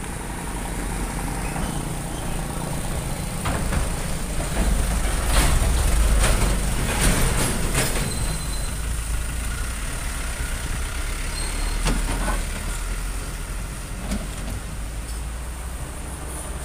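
Trucks passing on a road, their diesel engines running and growing loudest about five to eight seconds in, with a few short sharp noises as the heavier trucks go by.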